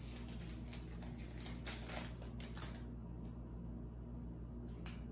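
Football trading cards and their pack wrapper being handled: soft scattered rustles and clicks as the cards are flipped through, thinning out after about three seconds.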